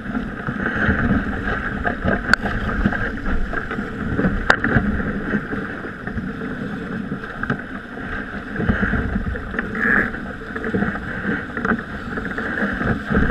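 Wind buffeting the microphone and water rushing along the hull of a small racing sailboat sailing heeled over under sail. A couple of sharp knocks come a few seconds apart in the first half.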